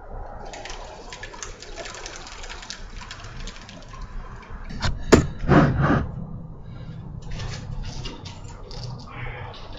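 Wet concrete sliding and slopping out of a plastic bucket into a mold, with a sharp knock and a heavier thud about five seconds in. Near the end a wooden board scrapes across the wet concrete in short strokes.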